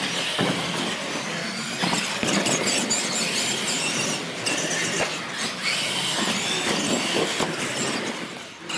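Several R/C monster trucks racing on a concrete floor: a steady high-pitched whine of their motors and gears over tyre noise, with a few sharp knocks from the trucks hitting ramps or each other.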